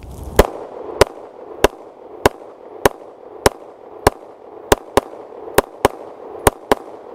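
Beretta APX 9mm striker-fired pistol being fired in a rapid string of about thirteen shots, each with a short echo tail. The shots come at an even pace just over half a second apart, then turn to quick pairs of double taps in the second half.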